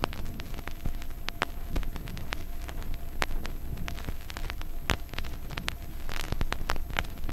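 Vinyl record surface noise in the blank groove between two tracks: irregular clicks and pops over a low rumble and faint hiss.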